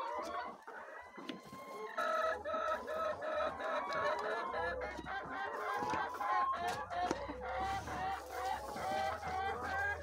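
A flock of laying hens clucking and calling over one another in a continuous chorus, thinner at first and growing busier about two seconds in.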